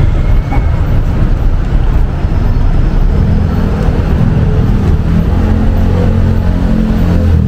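Steady street traffic noise with motor vehicle engines running close by; a deeper engine hum comes in about three seconds in.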